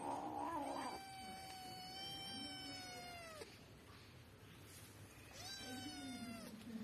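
Kitten yowling in warning at dogs over a bone: one long drawn-out cry that drops in pitch at its end, then a shorter falling cry a few seconds later. A low growl sounds under and after the second cry.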